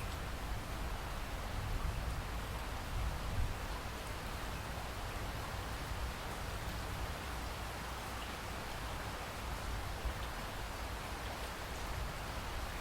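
Steady rainfall, an even hiss of drops, with a low rumble underneath that is a little stronger in the first few seconds.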